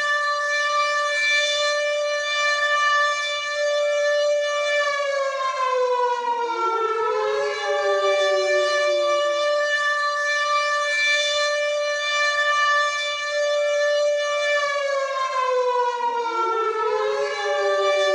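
WW2-style air raid siren wailing. A held tone slides down in pitch while a second tone winds up from low beneath it, and this rise and fall comes round twice, about ten seconds apart.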